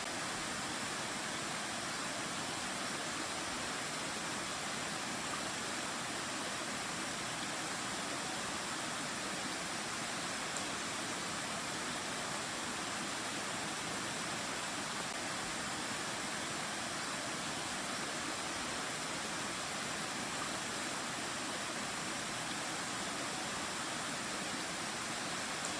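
Mountain valley stream flowing over rocks: a steady, even rush of water.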